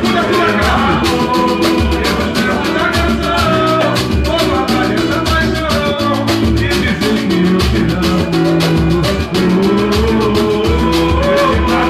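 A band playing upbeat Latin-style music: a busy, even percussion beat, a moving bass line and a melody over it.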